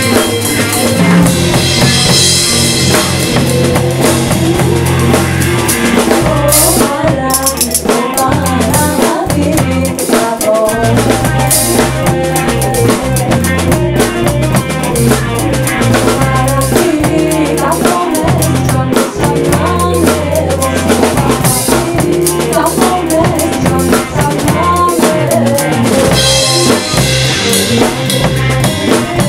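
A small band playing an instrumental passage of a Greek traditional song arranged for jazz quartet: the drum kit is to the fore, with snare, bass drum and cymbals, over an electric bass line, with electric guitar and n'goni. The cymbals swell up about two seconds in and again near the end.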